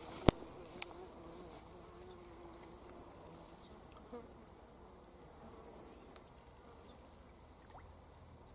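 An insect, a fly or bee, buzzing close by with a wavering hum that fades after about three seconds. Two sharp clicks come near the start, the second just under a second in, and are the loudest sounds.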